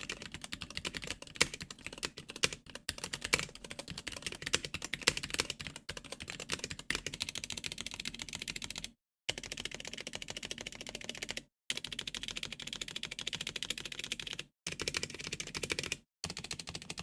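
Typing on a mechanical keyboard with Cherry MX Red linear switches: a fast, dense run of key clacks, broken by a few short silent gaps. Every keypress carries the switches' spring ping, which comes from unlubricated springs.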